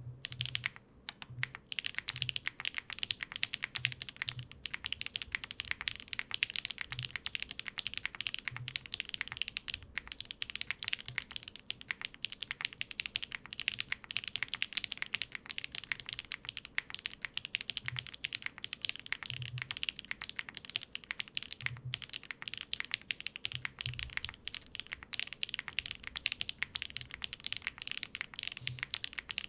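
Fast continuous typing on a mechanical keyboard with HMX EMO linear switches, PBT keycaps and an aluminium plate, with no foam inside: a steady stream of key clacks with an occasional deeper thud among them.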